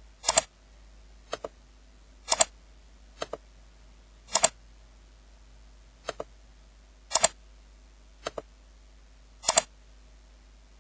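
Computer mouse clicking repeatedly: nine sharp clicks about a second apart, each a quick double tick of press and release, alternating louder and softer.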